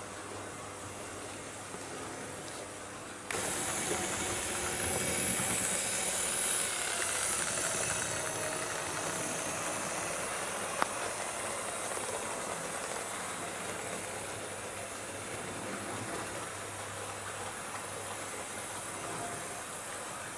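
HO-scale model train running on the track: the class 78 tank locomotive's motor whirring and the coaches' wheels rolling on the rails in a steady hiss-like rush. It jumps louder about three seconds in and eases off slowly, with a single sharp click near the middle.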